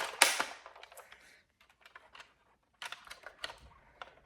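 Plastic clicks and clatter of a toy Nerf blaster being handled and loaded, with one louder snap right at the start and a run of smaller clicks near the end.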